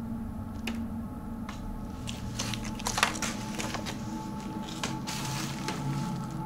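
Footsteps crunching and squishing over wet rubble and debris, irregular, with the loudest crunch about three seconds in, over a steady low rumble.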